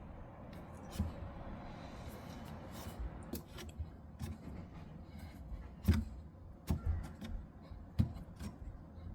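Irregular sharp clicks and knocks, as of parts being handled, over a faint steady noise. The loudest knocks come about six and eight seconds in.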